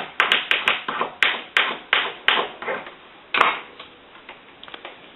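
Soldering gun tip being cleaned with about a dozen quick scraping strokes in the first three seconds. One sharper stroke follows, then a few faint ticks near the end.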